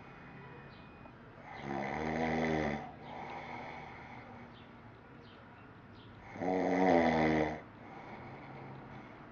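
A man snoring in his sleep: two long, loud snores about five seconds apart, each lasting a little over a second.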